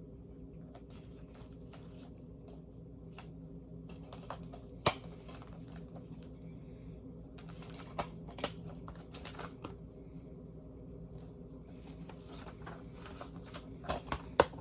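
Scattered light clicks and rustling of a plastic DVD case being handled, with one sharper click about five seconds in, over a faint steady hum.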